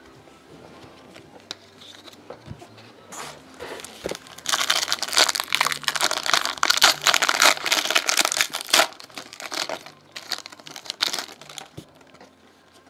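Foil trading-card pack wrapper crinkling as it is opened and handled, loudest for about four seconds in the middle, with a shorter spell of rustling near the end.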